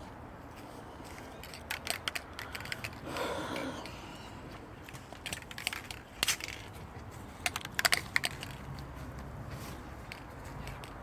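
Scattered sharp clicks and knocks in several short clusters over a steady low hum.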